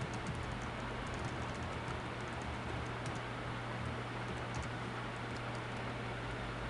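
Computer keyboard typing: scattered light key clicks over a steady low electrical hum and hiss.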